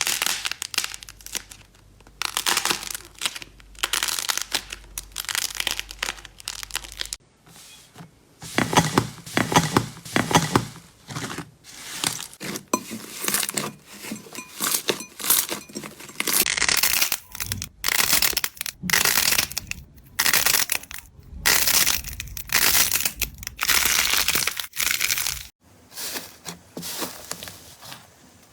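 Slime being squeezed, stretched and pressed by hand, making irregular bursts of crackling, popping and tearing sounds with short pauses between them. The texture of the sound changes about seven seconds in and again near the end.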